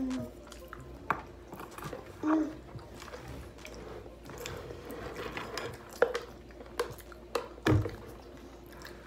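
Close-miked chewing and wet mouth sounds of people eating sushi and seaweed salad, broken by a few short sharp clicks and taps, the loudest near the end.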